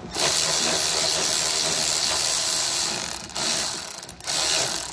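Quarter-inch ratchet with a 7 mm socket clicking rapidly as it is worked to loosen a hose clamp on the air intake. It makes one long run of about three seconds, then two shorter runs with brief pauses between them.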